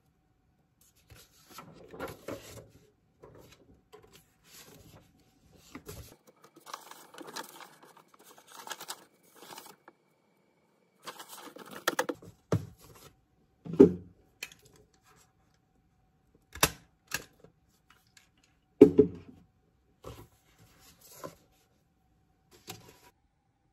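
Sheets of printed paper being handled, flipped and shuffled on a desk: irregular rustling, with a few louder thumps and a couple of sharp taps as the sheets are set down or knocked against the desk.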